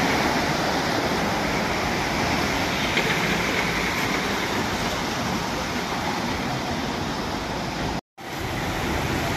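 Steady rushing hiss of water on a flooded street, with a pickup truck splashing through the floodwater. The sound breaks off for a moment near the end.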